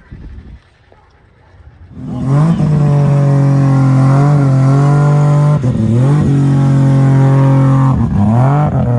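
Car engine revving up hard about two seconds in and held at high revs, dropping off briefly twice and climbing straight back up.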